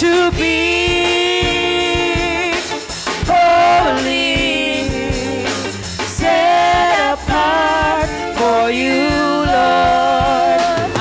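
Gospel praise-and-worship singing: women's voices holding long, wavering notes into microphones over a drum kit and band, the notes changing every couple of seconds.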